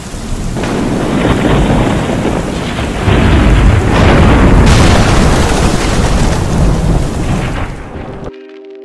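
Thunderstorm sound effect: rain with rolling thunder, growing louder about three seconds in, with a sharp thunderclap around the middle. It cuts off suddenly near the end as music starts.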